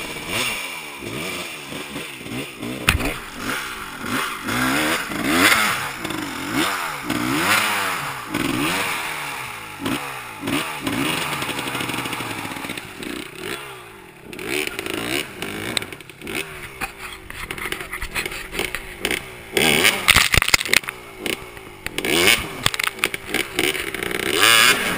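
Off-road dirt bike engine revved hard in repeated rising and falling bursts as the bike clambers up over rocks and roots. There are sharp knocks and clatters in the last few seconds.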